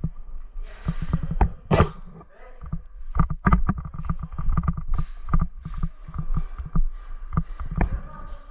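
Airsoft guns firing indoors: a run of sharp cracks and knocks, densest in quick bursts about three seconds in and again around five seconds, with faint voices underneath.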